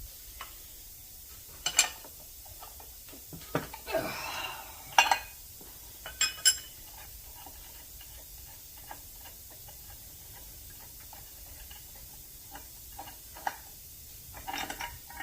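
Scattered clinks and clanks of metal parts and tools being handled and set down. Several sharp knocks come in the first six or seven seconds, then a quieter stretch, then a few more near the end.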